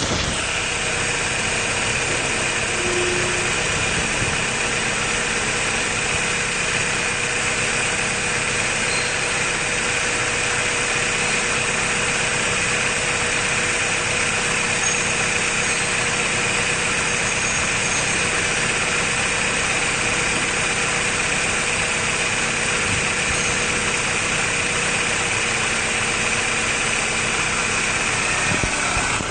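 BMW N42 four-cylinder petrol engine in a 2002 E46 318i idling steadily, heard from above the open engine bay. It holds an even note with no revving.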